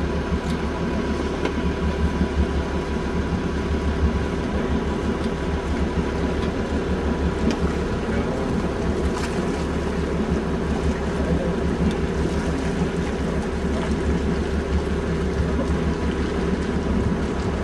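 Steamboat passing close by: a steady low rumble with water noise around the hull.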